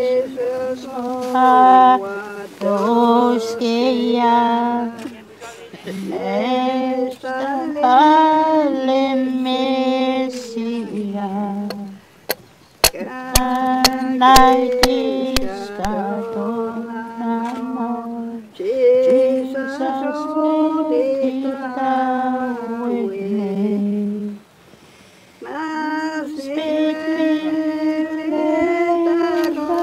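Voices singing slowly in unison, holding long notes in phrases of several seconds. About halfway through, a quick run of sharp knocks comes from a hatchet driving a wooden stake into the ground.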